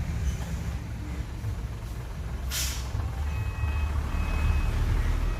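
Dump truck's diesel engine running steadily, with a short burst of air hiss about halfway through. After that, a reversing beeper sounds in short repeated tones.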